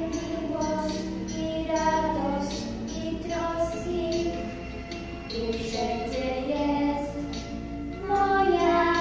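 Young girls singing a song together into a microphone, their voices held on sustained notes of a melody, growing louder near the end.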